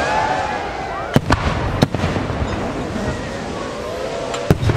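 Aerial firework shells bursting in a display: sharp bangs about a second in, again shortly after and near the end, over a continuous noisy crackle and many overlapping rising and falling whistles.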